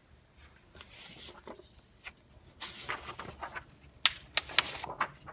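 Paper rustling and rubbing as a picture book is handled and its pages turned, with a couple of sharp clicks about four seconds in.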